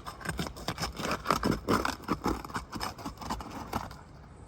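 Asphalt roof shingles being pried up and scraped loose, a quick run of short scraping and crackling strokes that tails off near the end. The sealed shingles are tearing free and leaving torn mat behind.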